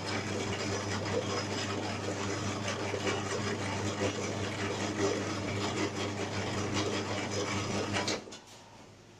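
BA60 round dough divider running: a steady electric-motor hum with a busy mechanical rattle, which stops abruptly about eight seconds in.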